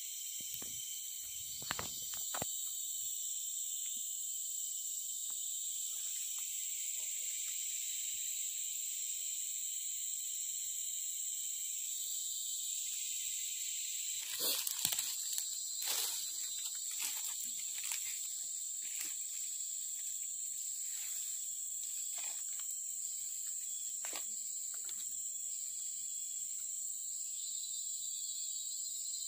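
Steady high-pitched insect chorus droning without a break in tropical forest. A few light rustles and clicks near the start and again about halfway through.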